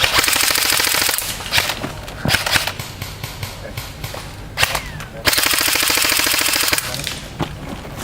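Airsoft gun firing on full auto: a rapid, even rattle of shots for about a second, a few single pops, then a second longer burst of about a second and a half, about five seconds in.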